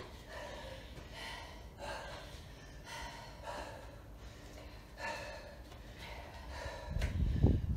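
Two women breathing hard and panting, out of breath from a fast set of mountain climbers, with repeated breaths in and out. Near the end comes a low thump.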